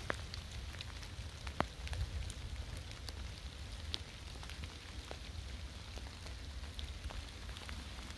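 Steady rain falling in woodland, with scattered sharp taps of single drops landing close by at irregular intervals, over a low rumble.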